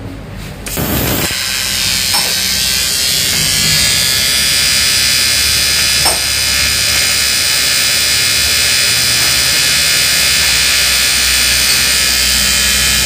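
TIG welding arc on the crack in a Honda Airblade's cast alloy rim: a steady buzzing hiss that strikes up about a second in and holds without a break.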